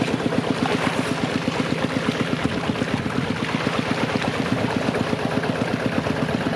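Small engine running steadily at an even pulse of several beats a second.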